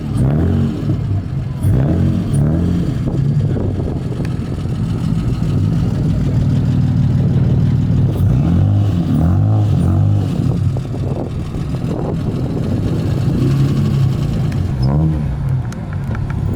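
Car engine idling through its exhaust, with several throttle blips that rise and fall in pitch.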